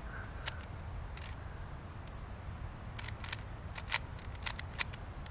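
A Rubik's Cube being twisted quickly by hand: irregular sharp plastic clicks as its layers turn, over a low steady rumble.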